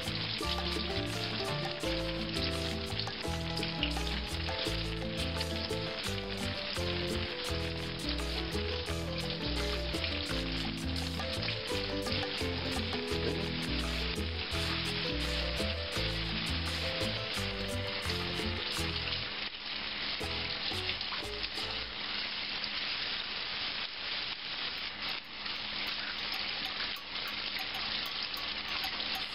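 Kitchen faucet running steadily, water splashing over roasted poblano peppers and into the sink as their charred skins are rubbed off and rinsed away by hand.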